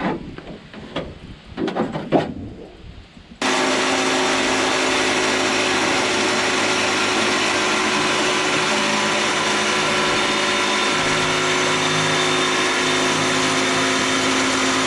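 A few irregular knocks and clatter, then, a few seconds in, a power tool starts suddenly and runs steadily with a constant hum.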